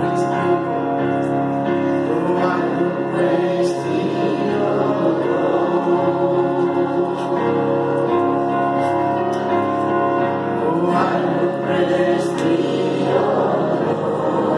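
A congregation singing a worship song together, many voices over sustained chords.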